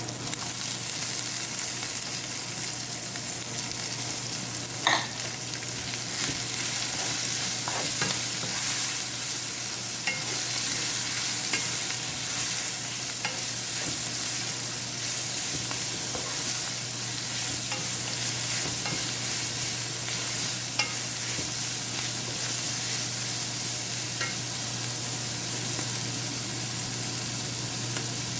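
Minced chicken, green onion and freshly added cabbage sizzling in hot oil in a pan as they are stirred, with occasional clicks of the utensil against the pan.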